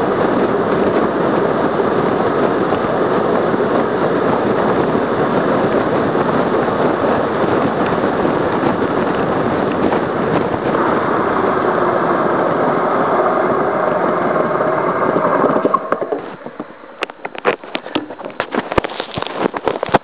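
Loud, steady wind rushing over the microphone of a bicycle-mounted camera during a fast road descent. About four-fifths of the way through the rush drops away suddenly as the bike slows, leaving a run of sharp, irregular clicks.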